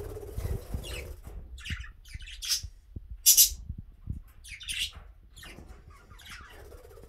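Budgerigars giving short, sharp chirps and squawks, about five separate calls with the loudest around three seconds in.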